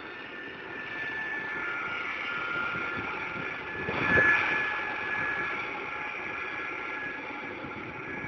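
Jet engines of a Boeing 747-200 on the runway, a steady rumble with a thin whine over it. The noise swells briefly louder about four seconds in.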